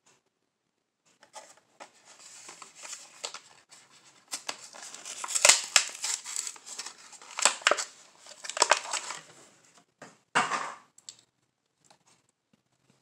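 A Hot Wheels blister pack being opened by hand: the cardboard card peeled and torn away from the thin plastic bubble, which crinkles and crackles. It comes as a run of sharp crackles and rips, loudest in the middle, with a last loud rip about three quarters of the way through.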